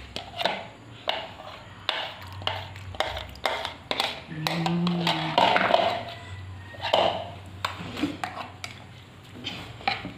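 A metal spoon scraping and knocking against a plastic mug and a glass blender jar as mashed avocado is scooped in: a string of irregular clicks, taps and scrapes.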